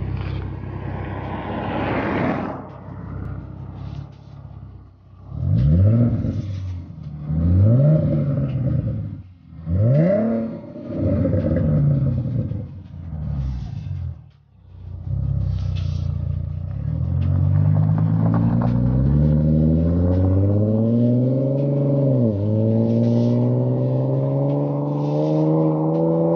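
2014 Ford Mustang with a Flowmaster aftermarket exhaust, idling at the tailpipes, then revved in three sharp blips and a few smaller ones. Later it accelerates hard, the engine note climbing steadily, dropping once at a gear change near the end and climbing again.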